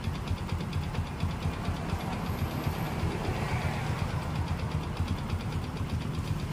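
Honda Supra X 125's single-cylinder four-stroke engine idling steadily with an even, rapid putter. Its carburetor is flooding while the engine runs, a fault typically caused by a damaged float needle.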